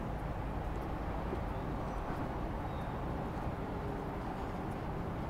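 Steady outdoor city ambience: an even low rumble of distant traffic, with a couple of faint short high chirps about two to three seconds in.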